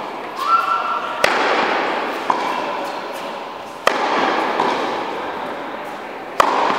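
A tennis ball struck by a racket three times, about two and a half seconds apart, with lighter ball bounces on the court in between. Each hit echoes in a large indoor hall.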